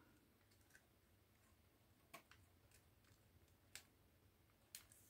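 Near silence broken by a few faint, sharp clicks of fingernails prying at a drone's plastic shell.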